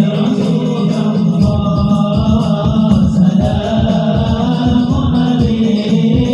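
Sholawat, an Islamic devotional song, sung in Arabic with long held, wavering notes over a steady percussion beat.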